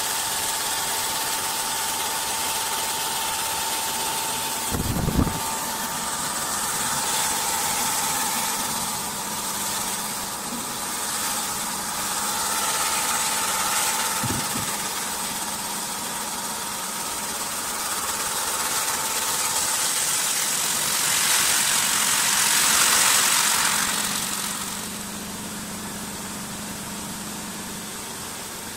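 Automatic CNC wood-turning lathe running and working a wooden blank: a steady hiss with a faint whine in the first half and short knocks about 5 and 14 seconds in. The noise swells about three-quarters of the way through, then drops to a quieter steady run.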